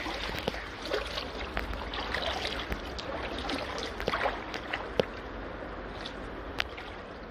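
Someone wading through shallow brook water in waders: irregular sloshes and splashes over a steady rush of water.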